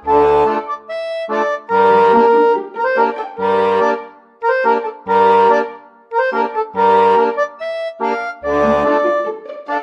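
Background music led by an accordion playing bouncy, evenly phrased chords over a bass line.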